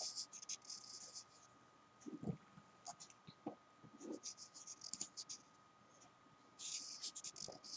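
A thick felt-tip marker squeaking and scratching over paper in quick short strokes while drawing and filling small circles. It comes in three spells: at the start, around four seconds in, and near the end.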